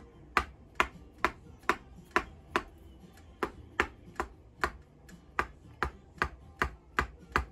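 Red rubber mallet striking a chiropractic chisel held against the upper back, a hammer-and-chisel adjustment: a steady run of sharp taps, a little over two a second.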